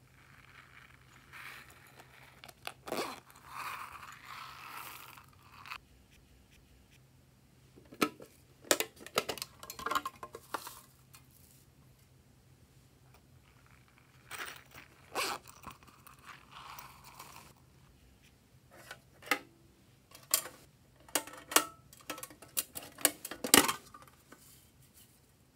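Small plastic containers being handled and opened, and toppings such as beads, sprinkles and glitter shaken from plastic cups onto slime in a glass dish. There are several spells of crinkly rustling broken by clusters of sharp clicks and taps, the densest near the end.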